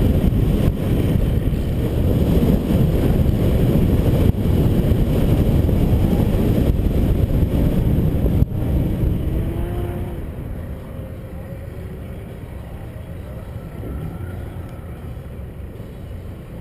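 A pickup truck driven hard on an autocross course, heard from a roof-mounted GoPro: a heavy rush of wind and road noise over the engine. About ten seconds in the sound eases off to a lower, steadier rumble.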